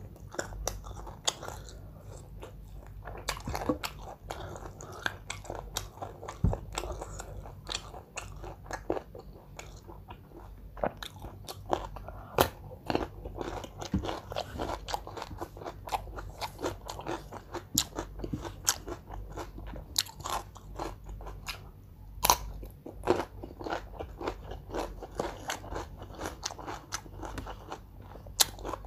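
A person chewing and biting crunchy food close to the microphone: irregular sharp crunches and mouth clicks, several every second.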